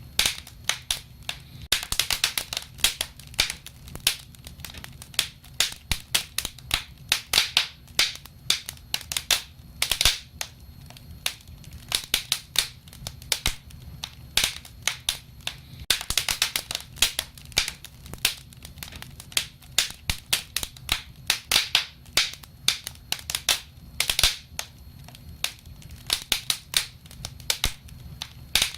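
Wood fire crackling: irregular sharp pops and snaps, sometimes in quick flurries, over a soft low rumble.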